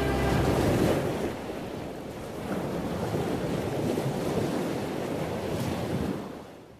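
Small waves washing onto a sandy beach, with wind on the microphone; the sound fades out near the end.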